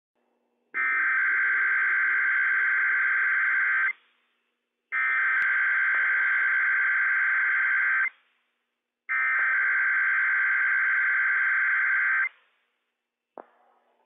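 NOAA Weather Radio Emergency Alert System SAME header: three bursts of digital data tones, each about three seconds long with a second of silence between, opening a Required Weekly Test. A brief click comes near the end.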